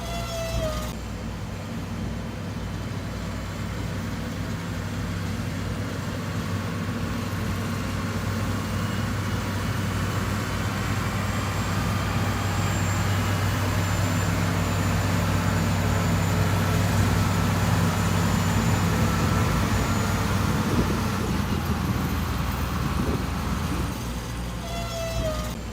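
Heavy construction machine's diesel engine running steadily with a low hum, growing gradually louder toward the middle and easing off near the end.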